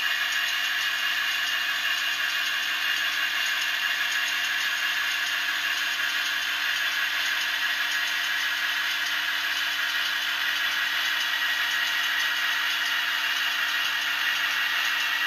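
Sound decoder in an OO-gauge Heljan Class 28 Co-Bo model locomotive playing the Crossley two-stroke diesel engine sound through its small loudspeaker. The engine runs steadily, thin-sounding with little bass.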